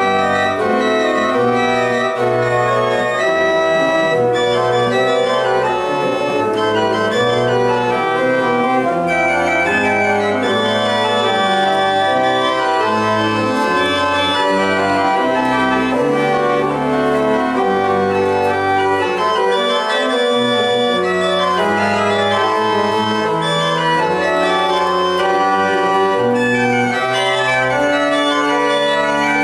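Pipe organ playing a piece with many sustained notes sounding together over a bass line that moves every second or so, steadily loud throughout.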